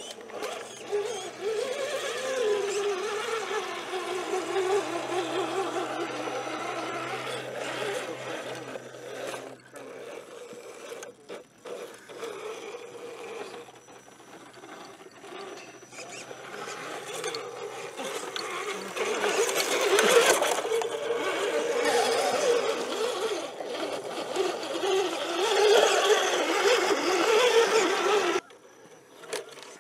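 Electric motor and gearbox of an RC scale rock crawler whining as it climbs over rock, the pitch rising and falling with the throttle, with a few clicks partway through. The sound drops away shortly before the end.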